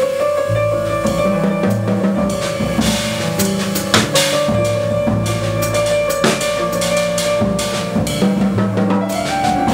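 Live jazz group playing: drum kit with snare and cymbal strokes over moving double-bass notes and a long held note, with a sharp drum accent about four seconds in.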